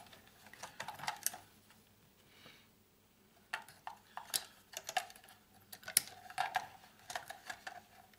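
Small irregular clicks and taps of pliers working on wires and metal terminals inside an old Bakelite antenna-rotor box, with a quieter lull about two seconds in.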